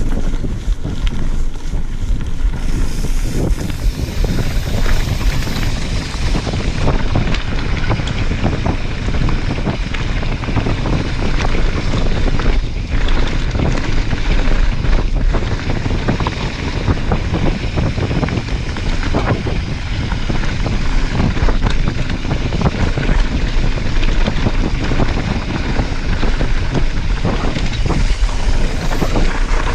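Wind rushing over an action camera's microphone as a mountain bike descends a rough dirt trail, with a steady low rumble and frequent knocks and clatter from the tyres and bike over the ground.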